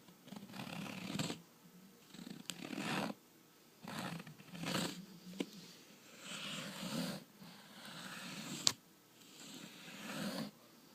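Close-miked soft rustling or scratching in repeated strokes of about a second each, broken by a few sharp clicks, the loudest near the end.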